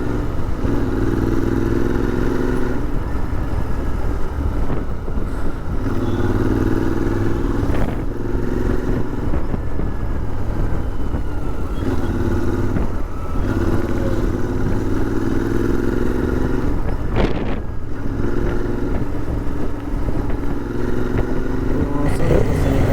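Royal Enfield Interceptor 650's parallel-twin engine running while the motorcycle is ridden on the road, its engine note swelling and easing every few seconds with the throttle.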